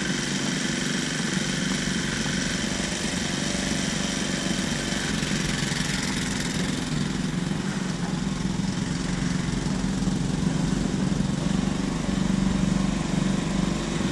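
Bobcat E10Z mini excavator's engine running steadily as the machine digs and swings its boom, getting a little louder in the second half.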